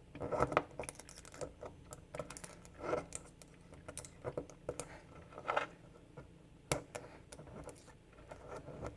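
Small hand tool clicking and scraping against a pressure washer quick-disconnect coupler as a new O-ring is worked down into its groove. There are irregular light clicks and short scrapes, with a few sharper ones about half a second in, around three seconds in, and between five and a half and seven seconds in.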